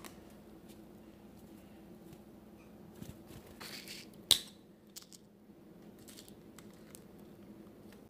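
Handling noise from a zip-top plastic bag of bird seed: light rustles and small clicks over a faint steady hum, with a brief scraping rustle and then one sharp click a little past the middle.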